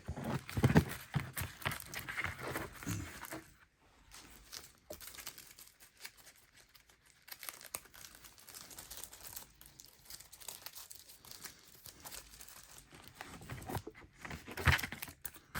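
Plastic crinkling and crackling as trading cards in their plastic are handled. It is busy for the first few seconds, goes to a light rustle, then flares up again near the end.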